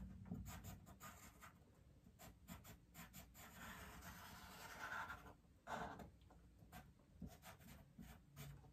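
Charcoal pencil scratching faintly on drawing paper in many short, irregular strokes as line details are drawn in.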